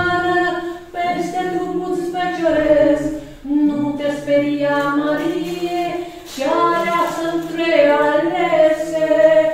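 Voices singing a Romanian Orthodox pricesnă (devotional hymn) in long held phrases, with brief breaths between phrases.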